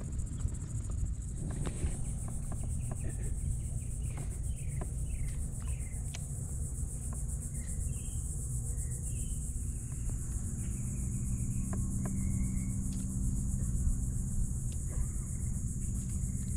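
Steady high-pitched buzz of insects, over a low rumble of wind on the microphone, with a few short chirps and occasional light clicks.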